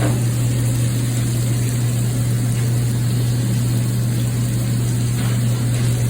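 A loud, steady low machine hum with a faint noisy hiss over it, holding level throughout and unchanging in pitch.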